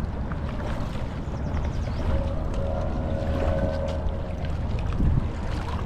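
Steady low rumble of wind buffeting the microphone and river water. A faint drawn-out tone sounds about halfway through and lasts a little over a second.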